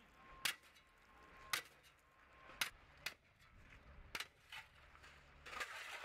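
A metal shovel blade chopping down into thick ice on pavement: sharp strikes about once a second, then a grating scrape of broken ice near the end.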